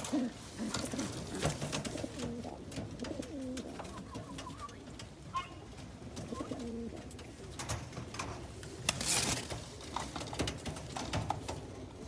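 Lahore pigeons cooing: repeated low, rolling coos. Scattered clicks and a brief rustle about nine seconds in.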